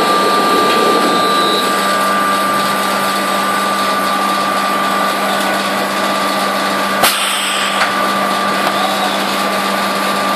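Automated bag de-bagging line running: a steady machinery noise with a constant low hum and a steady high tone, and one sharp clack about seven seconds in.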